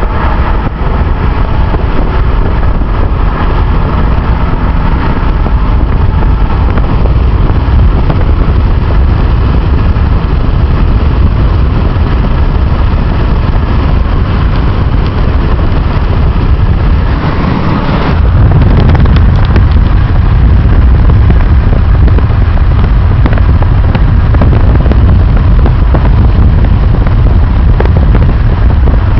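Loud, steady wind noise battering the microphone of a moving vehicle, over road noise; it grows louder about eighteen seconds in.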